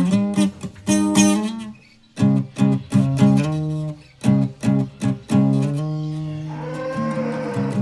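Guitar strummed in short chords, with a brief pause about two seconds in. Near the end a chord is left ringing and slowly fades.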